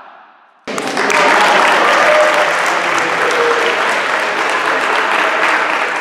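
Crowd applauding, starting suddenly about a second in, with a few voices calling out over the clapping.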